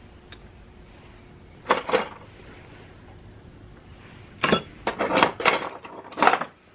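Metal hand tools clinking and knocking as they are handled: two sharp clinks about two seconds in, then a quicker run of clinks and knocks a little past the middle.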